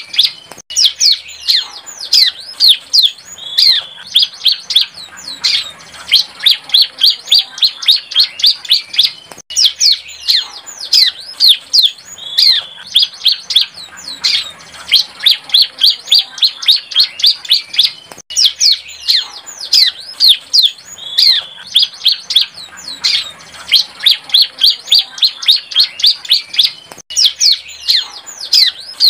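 Young bar-winged prinia (ciblek) singing its practice song: rapid high chirps, several notes a second, in phrases of a second or two with short breaks between.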